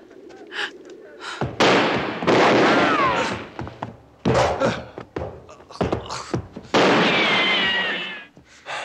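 Movie shootout sound effects: four sudden, loud blasts of gunfire and explosions, each trailing off over a second or more, with sharper single shots between them. A wavering, drawn-out cry sounds over the loudest blasts.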